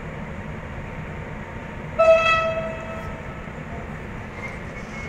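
A train horn sounds one short blast of about a second, a single high note, over a steady low rumble.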